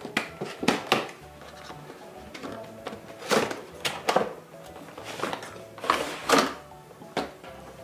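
Cardboard toy box and its clear plastic window being handled and opened: a cardboard sleeve sliding off and plastic rustling in a string of short scrapes and crinkles, over soft background music.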